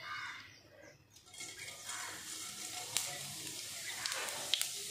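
Whole cumin seeds sizzling in hot mustard oil as a tempering (phoron). A steady sizzle starts about a second in, with scattered small pops and crackles.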